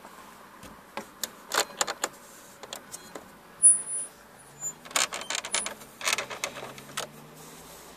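Fingers pressing buttons and tapping the plastic dashboard trim and radio of a VW Passat B6. The sound is a string of short sharp clicks in two clusters, with one louder click a little before halfway.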